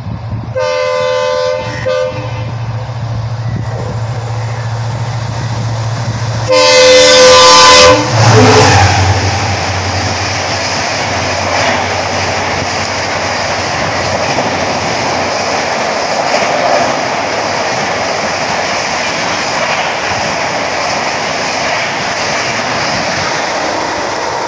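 WDP4D diesel-electric locomotive with an EMD 16-cylinder two-stroke engine approaching fast, its engine drumming low. It sounds its multi-tone horn in two short blasts near the start, then one long, very loud blast about six and a half seconds in with a short toot after it. The express coaches then rush past at about 130 km/h in a steady loud roar of wheels on rail.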